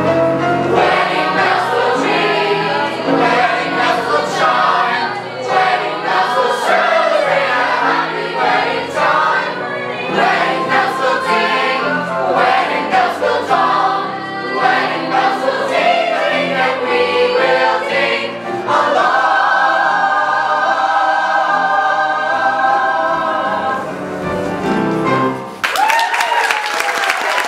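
Large mixed chorus singing a musical-theatre ensemble number over accompaniment. The chorus holds a long final chord about two thirds of the way through and cuts off, and near the end the audience breaks into applause with a whoop.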